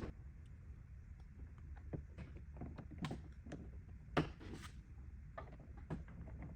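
Scattered light clicks and taps of a car door handle assembly and its latch being handled and fitted, about half a dozen, the loudest about four seconds in.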